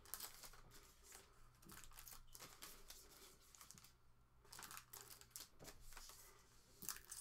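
Faint crinkling and rustling of sealed trading-card pack wrappers being handled and cut open with scissors, in scattered short crackles.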